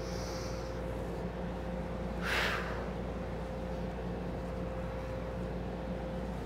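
One sharp breath out through the mouth, a short breathy rush about two seconds in, forced by the effort of rolling up in a decline sit-up. A steady low hum runs underneath.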